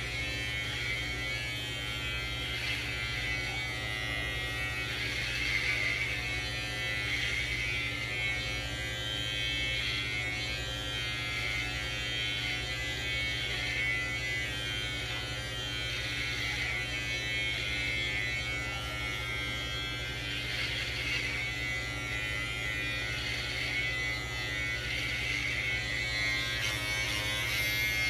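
Electric hair clippers with a guard comb running with a steady buzz while cutting hair, with a rougher edge that swells and fades as the blades move through the hair.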